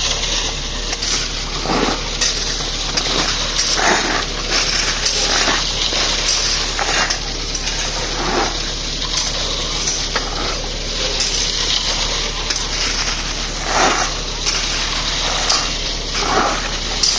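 Shovels scraping and metal pans (taslas) clanking as they are filled with material, repeatedly and irregularly, over a steady low engine hum.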